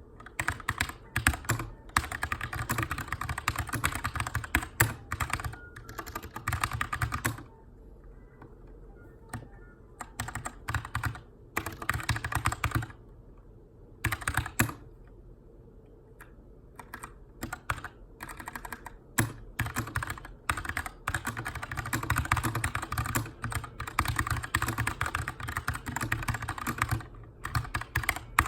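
Typing on a Keychron K2 mechanical keyboard with brown tactile switches: quick runs of keystrokes in bursts, broken by short pauses of a second or two.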